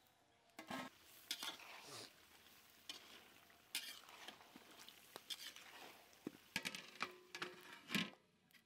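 A metal spatula stirring and scraping mutton khichuri in a large karahi, in uneven strokes, with the food sizzling. Near the end a metal lid is set down on the pan with the loudest clank.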